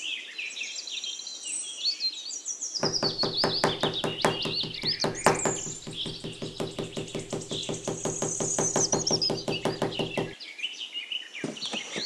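Small hammer tapping a painted wooden stick in rapid, evenly spaced light knocks, about five a second for several seconds. Birds chirp steadily throughout.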